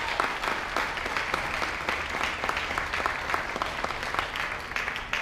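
Audience applauding steadily, with individual close claps standing out sharply from the crowd's clapping.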